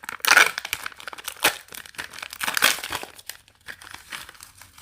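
Blind-box packaging crinkling and tearing as it is opened by hand, in irregular bursts, loudest in the first half-second.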